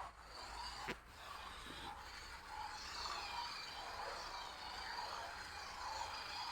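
Toy RC car's small electric motor whirring with a wavering pitch while its hard, rubberless wheels scrape and rub over the floor as it drifts; a single click about a second in.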